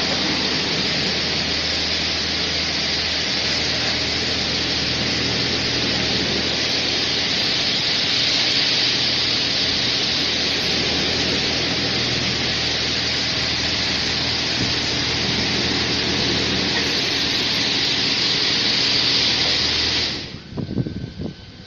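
Touchless automatic car wash machine spraying high-pressure water jets: a steady loud hiss of spray over a low hum, cutting off suddenly near the end.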